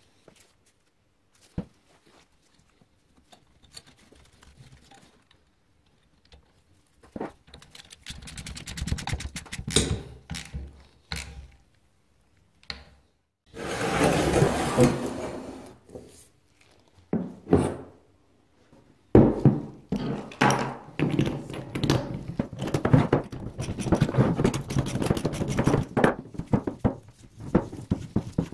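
Metal parts of a Honda ATC 90 engine and hand tools being handled and fitted on a workbench: scattered clicks and knocks, with stretches of quick, close-set clicking. There is a short rush of scraping about halfway, and near-continuous clicking and knocking through the last third.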